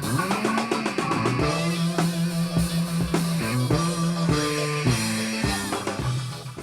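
Funk music with drum kit, bass guitar and electric guitar played through JBL LSR305 active studio monitors, fading out near the end.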